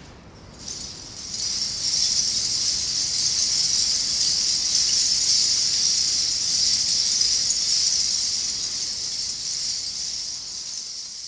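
Hundreds of metal bottle caps strung on a dress jingling and clattering against each other as the dress spins. The dense jangle starts about half a second in, swells over the next second, holds steady, and eases off a little near the end.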